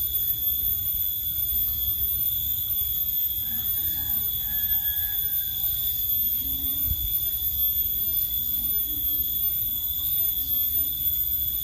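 A steady, high-pitched whine over a constant low rumble, with a dull thump about seven seconds in.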